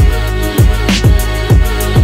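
Background music with a steady beat of deep kick drums and hi-hat ticks.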